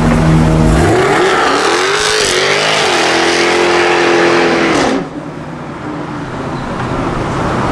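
Jaguar F-Type R's supercharged V8 accelerating hard: the engine note climbs, holds at high revs for a couple of seconds, then drops and cuts off abruptly about five seconds in, followed by quieter road noise.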